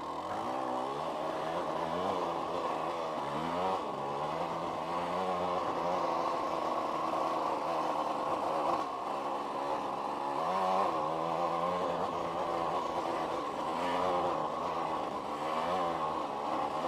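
1990s KTM two-stroke dirt bike engine revving up and falling back again and again as the throttle is opened and closed at low trail speed.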